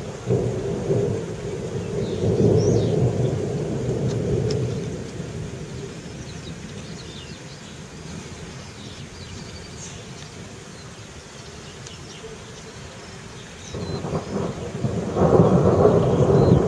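Rolling thunder. A long low rumble fades away over the first few seconds, and after a quieter stretch a new rumble builds near the end and grows loud.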